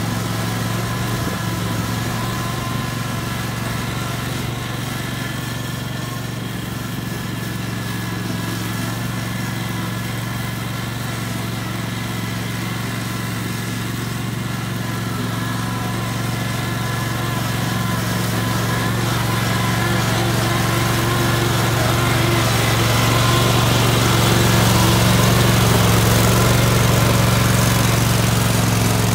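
solo by AL-KO T22-110.0 HDH-A V2 Premium ride-on lawn tractor running steadily under load, its engine working as it cuts through tall, long-unmown grass on a slope. The sound grows louder over the last third as the tractor comes close.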